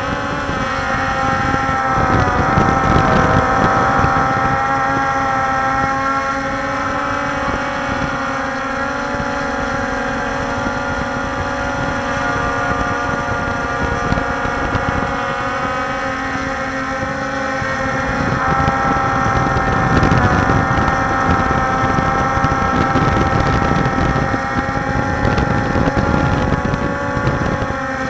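Walkera Scout X4 quadcopter's electric motors and propellers giving a steady multi-tone buzz from the onboard camera, wavering slightly in pitch as the drone manoeuvres. Wind rumbles on the microphone and swells a few seconds in and again past the middle.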